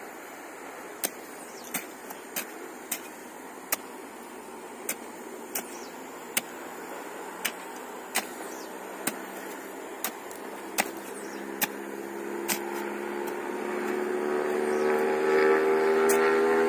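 Hand hoe chopping into dry, stony hillside soil, a sharp strike every second or less, about sixteen strikes in all. From about twelve seconds in, a motor vehicle's engine grows steadily louder.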